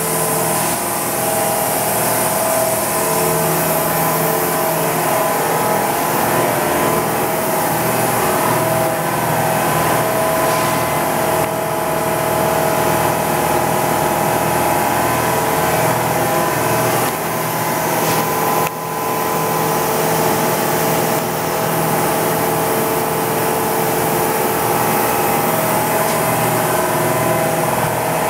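Hurco BMC-20 CNC vertical machining center running under power: a steady whine of several tones over a hiss, dipping briefly about 19 seconds in.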